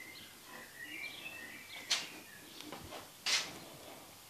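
Quiet room with faint bird chirps in the background, and two brief sharp handling noises about two and three seconds in.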